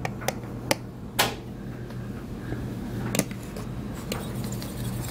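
A few scattered light knocks and clicks, the loudest about a second in, over a steady low hum.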